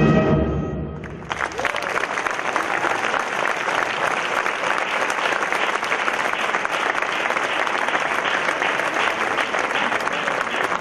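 A wind band's last held chord with solo trumpet fades away, and about a second in the audience breaks into steady applause.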